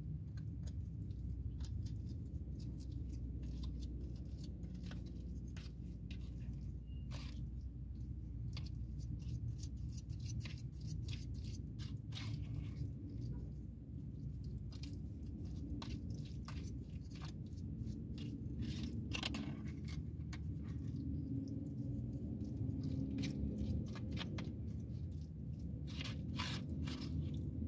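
Clear plastic fork scraping and clicking against a bowl of macaroni and cheese, with chewing, in many short irregular clicks over a steady low hum.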